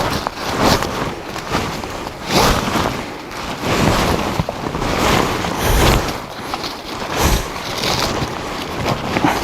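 Rustling and handling noise from working a strap and a camera trap on a tree, with scattered knocks and a few low thumps.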